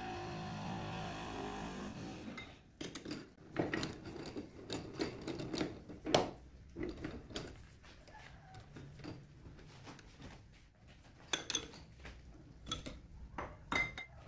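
Steel lathe tooling being handled: a tool-holder block set onto the tool post and clamped, giving scattered metallic clicks and knocks, the loudest about six seconds in. A steady hum runs for the first two and a half seconds, before the clanking starts.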